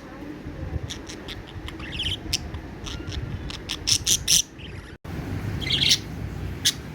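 Budgerigar chirping in quick, short, high chirps that come in irregular clusters over a steady low background hum, with a brief break in the sound about five seconds in.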